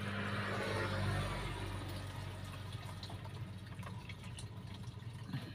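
Fuel being poured to refill a measuring container: a steady pouring trickle that is strongest over the first couple of seconds and then tapers off, over a low steady hum, with a few faint clicks near the end.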